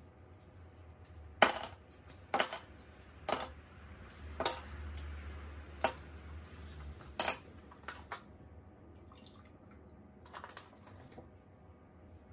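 Ice cubes dropped one at a time into a glass mason jar: six sharp clinks about a second apart, each with a brief ring of the glass.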